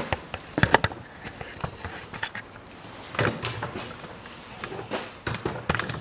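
Irregular clicks, taps and knocks of hands working metal parts and handling the camera around a car's gearbox selector mechanism. The clicks come in a pair about a second in, a cluster around three seconds in, and several near the end.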